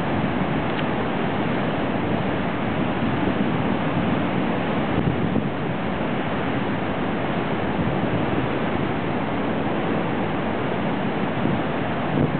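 Heavy storm surf breaking against and over a concrete harbour jetty, mixed with wind buffeting the microphone: a steady, unbroken rush of noise with no single crash standing out.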